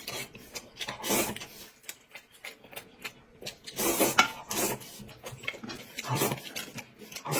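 Noodles being slurped and chewed, in several short noisy bursts with pauses between.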